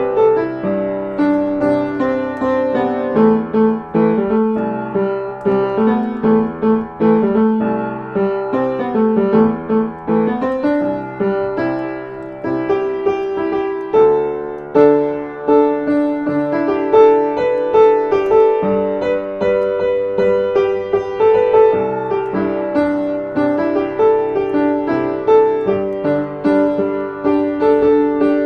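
Background piano music, several notes sounding together and changing often.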